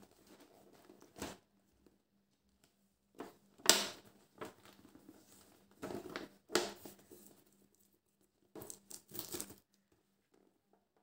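Wafer snack packaging being handled and opened by hand: about five short bursts of rustling, crinkling and tearing, the loudest and sharpest about four seconds in, with quiet gaps between them.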